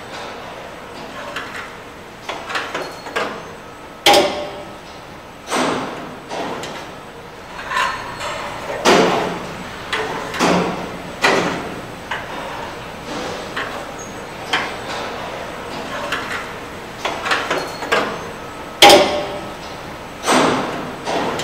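Car-body production line in a large hall: irregular metallic knocks and clanks with a reverberant tail over a steady background, the loudest near the end.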